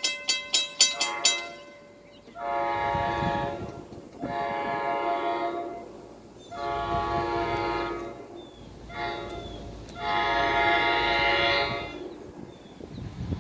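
New Jersey Transit train's air horn sounding as it approaches, in a series of blasts: three long, one short, then a final long one. At the start a bell rings rapidly, about four strokes a second, and stops about a second and a half in.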